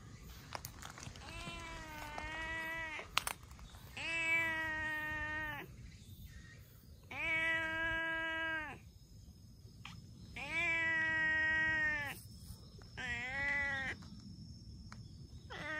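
Stray tortoiseshell cat meowing repeatedly: five long, drawn-out meows about a second and a half each, roughly every three seconds, with a sixth starting at the end. A single sharp click comes about three seconds in.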